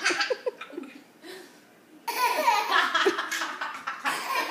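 A toddler laughing with a woman laughing along: a short laugh at the start, then a long peal of laughter from about two seconds in and another burst near the end.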